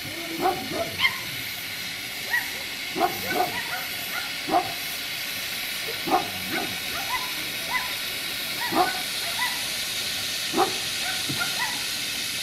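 Steady hiss of steam from a standing narrow-gauge steam locomotive, CFI 764.431, with a dog barking on and off about a dozen times over it.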